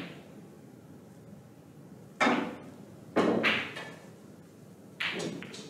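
Snooker balls and cue knocking on the table: three sharp clacks about a second or two apart, each ringing away briefly.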